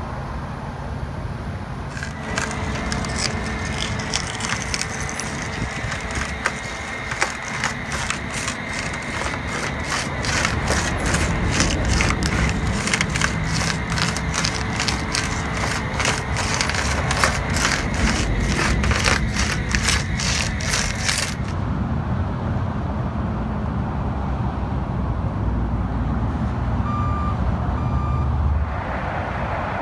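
Flatbed tow truck at work, its machinery giving a steady whine with regular clicking about twice a second that cuts off abruptly about two-thirds of the way through, over a continuous low rumble of engines and traffic. A few short beeps sound near the end.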